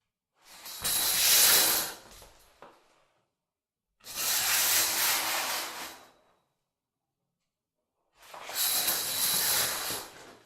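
Shower curtain pulled open and shut along its rod, the curtain rings sliding with a hissing scrape. Three sweeps of about two seconds each, starting near the beginning, about four seconds in and about eight seconds in, with quiet between them.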